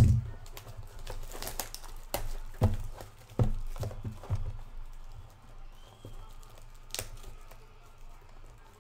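A cardboard trading-card hobby box (2021 Panini Phoenix football) set down with a thump, then turned and handled, with sharp knocks and clicks against the table and crinkling of its plastic shrink wrap. It gets quieter after about four seconds.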